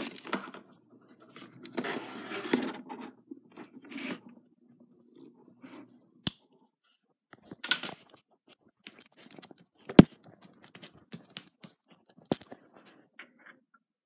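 Rustling and scraping handling noises with scattered clicks and a few sharp knocks, the loudest about ten seconds in.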